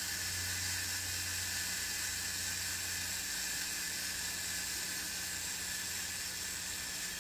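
The mechanical self-timer of a Yashica D's Copal-MXV leaf shutter running down, a steady even whir, with the shutter not yet tripped.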